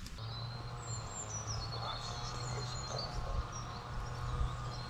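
Birds chirping in the background, many short falling high notes, over a steady low hum.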